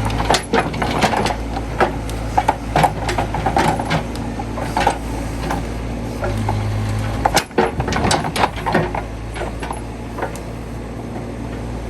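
A steady low engine hum under a string of sharp clicks and metallic knocks, in clusters, from a Case 580C backhoe at work.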